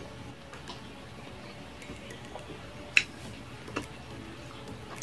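Close-up eating sounds: small wet clicks and smacks of chewing, with a sharp click about three seconds in, the loudest sound, and a smaller one shortly after.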